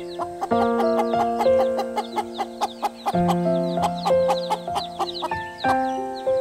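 Background music of held chords that change every two to three seconds, over a quick run of short notes, mixed with cartoon hen clucks and chick peeps.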